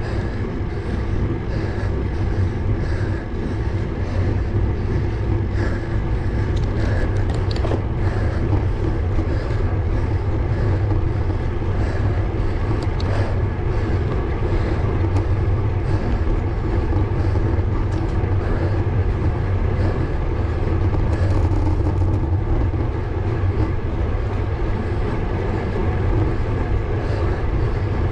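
Steady wind rumble and road noise from a road bike climbing at an even pedalling pace, picked up by a GoPro on the bike, with a few faint clicks.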